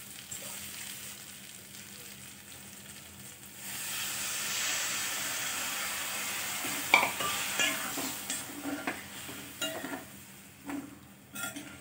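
Water poured into a hot steel kadhai, hissing for about three seconds. Then a steel spatula stirs the pan, with scraping and clinks against the metal.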